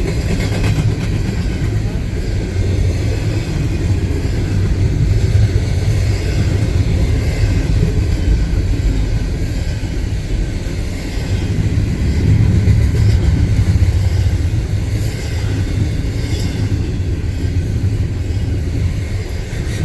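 Norfolk Southern train rolling steadily past: a continuous low rumble of wheels on rail, swelling a little about a third of the way in and again past the middle.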